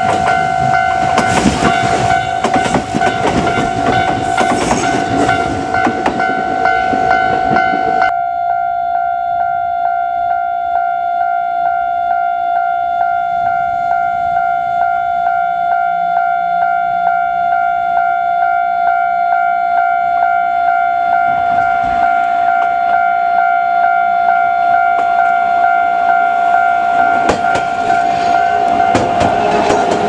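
Level crossing warning bell ringing steadily the whole time. For the first eight seconds a Kintetsu electric train runs through with wheel clatter, which cuts off suddenly. Near the end a yellow Sangi Railway Hokusei Line train rumbles past close by.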